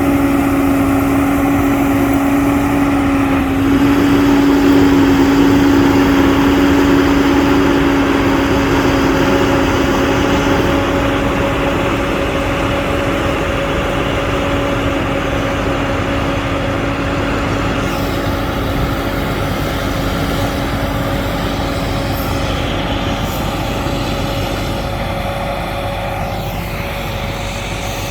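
Farm machinery engine running steadily, with a constant hum; it eases slightly near the end.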